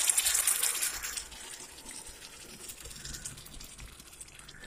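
Water poured into a hot pan of stuffed brinjal curry: a loud hiss as it hits the hot oil and masala, fading after about a second and a half into a soft, steady sizzle as the curry simmers.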